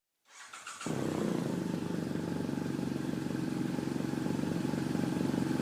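A motor running steadily with a fast, even pulse, coming up within the first second.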